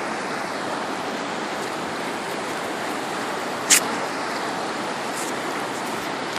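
Shallow river rushing steadily over a rocky riffle. One brief sharp click about two-thirds of the way through.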